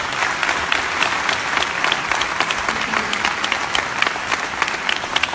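Audience applauding: dense, steady clapping from a large seated crowd in a hall.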